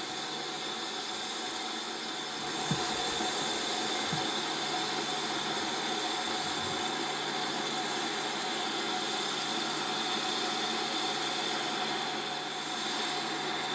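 Steam locomotive letting off a steady, loud hiss of steam, with a few dull knocks in the first seven seconds.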